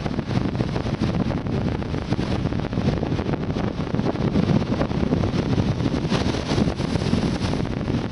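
Strong wind buffeting the microphone: a dense, unsteady low rumble with no speech.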